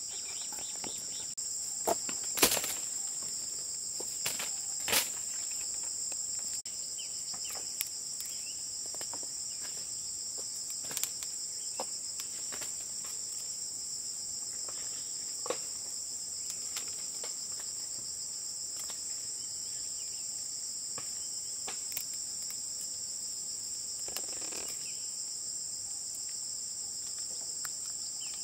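Insects drone steadily at a constant high pitch. Scattered sharp clicks and snaps come from fruit being pulled off the branches by hand, the loudest about two and a half and five seconds in.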